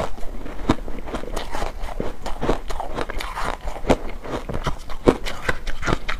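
Layered ice chewed in the mouth: a dense, irregular run of crisp cracks and crunches, with a fresh bite into a new ice bar near the end.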